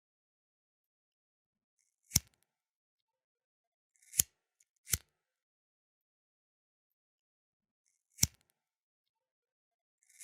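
Flint lighter being worked, giving sharp single clicks with silence between, two of them coming close together about halfway through.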